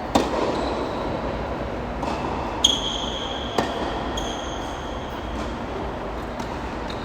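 Tennis ball struck by rackets three times, sharp pops just after the start, about two and a half seconds in and a second later, over a steady background hiss. A high steady ringing tone sounds for about a second and a half after the second hit, and briefly again about four seconds in.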